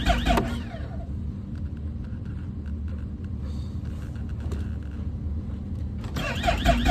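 Snowmobile electric starter cranking the engine in a fast even rhythm, about five pulses a second, without it catching. The cranking stops shortly in, leaving a low steady rumble, and starts again near the end. The engine won't fire because the kill switch is on.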